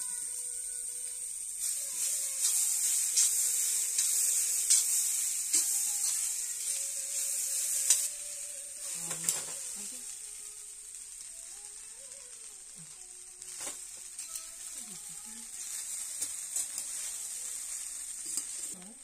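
Vegetables and rice sizzling in a hot iron kadai while a metal spoon stirs and scrapes, with short clicks of the spoon against the pan. The sizzle is louder for the first eight seconds or so, then settles lower.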